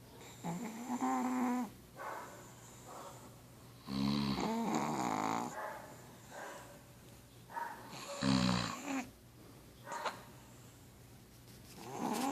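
Pug snoring: a run of snores about every two seconds, the two loudest, around the middle, with a pitched rattling tone.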